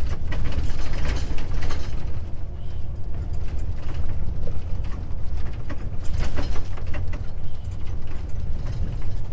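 Inside a truck cab jolting over a badly broken road surface: a steady low rumble from the road and drivetrain, with rapid rattling and knocking of the cab and its loose fittings shaken by the bumps.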